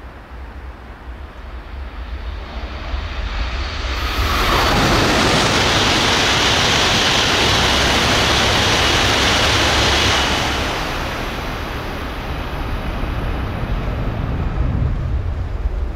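E5-series shinkansen coupled with an E6-series set, passing through a station non-stop at about 308 km/h. Its rushing noise of air and wheels builds over a couple of seconds, stays loud and hissing for about six seconds as the train goes by, then drops away.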